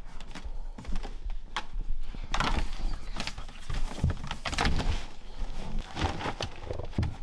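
A Weimaraner in labour rolling and digging in her whelping box: irregular knocks of her paws and body against the box's sides, with scratching and rustling of the fleece blanket, the restless nesting of a bitch about to whelp.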